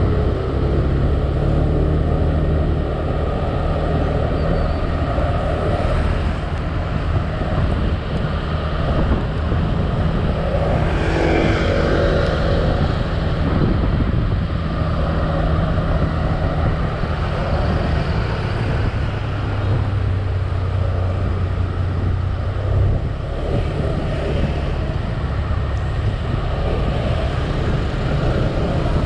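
Motorcycle engine running steadily while riding in traffic, its low note shifting as the speed changes, under constant wind and road noise.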